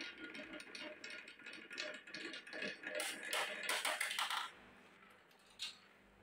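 Glass marbles clacking and rattling as they roll down a wooden wave-shaped rail, building to a dense clatter of marbles knocking against other marbles from about three to four and a half seconds in; after that it goes quieter, with one lone click near the end.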